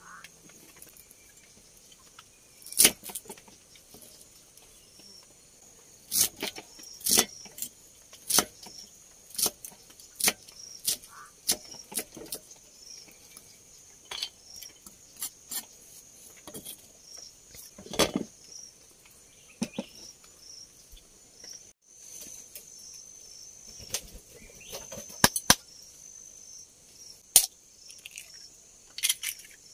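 Sharp knocks and clinks of kitchen utensils and cookware at irregular intervals, over a steady high-pitched chorus of forest insects.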